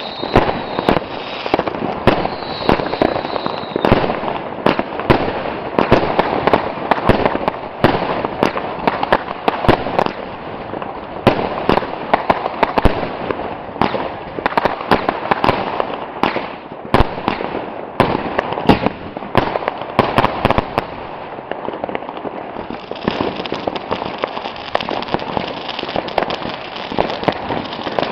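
Consumer New Year's Eve fireworks firing nonstop: rapid bangs from firework batteries over a continuous crackle. A thin high whistle runs under the shots for the first few seconds.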